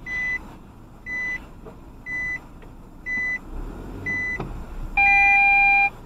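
Car's in-cabin reversing buzzer: a short high electronic beep about once a second, the car in reverse gear. About five seconds in, a louder electronic tone of several pitches is held for nearly a second.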